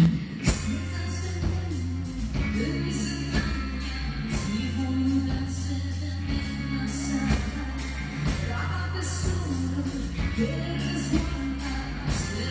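Live rock band playing: a woman singing over electric guitar, held low bass notes and a drum kit with regular cymbal strikes.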